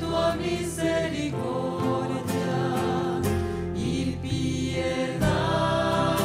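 Mixed choir of men and women singing a slow devotional hymn with instrumental accompaniment, sustained sung notes over light high percussion ticks.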